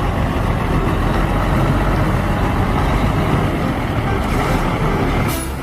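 Heavy truck engine running steadily, then cutting off near the end.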